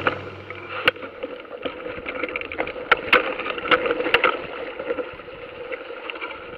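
Mountain bike rolling over a rough, stony trail, heard through a bike-mounted action camera: a steady muffled rumble with several sharp knocks and rattles as the bike and camera jolt over bumps, most of them between about one and four and a half seconds in.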